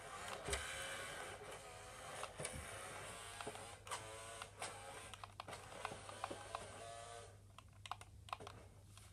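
Small electric motor and gears of a remote-control BMW i8 toy car whirring as it drives across carpet, rising and falling in pitch with its speed, with scattered clicks. The whirring stops about seven seconds in.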